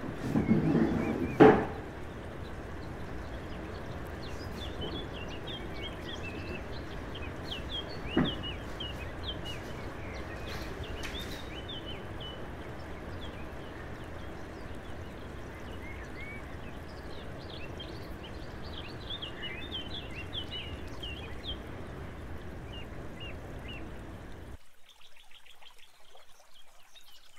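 Steady wash of outdoor water noise with many small birds chirping over it. A knock about a second in, another about eight seconds in; the ambience cuts off sharply near the end.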